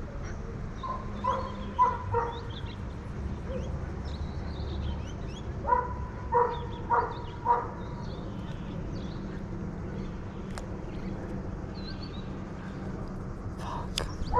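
A dog barking in short runs of four or five barks, one run near the start and another midway, starting up again at the very end. Small birds chirp faintly in the background.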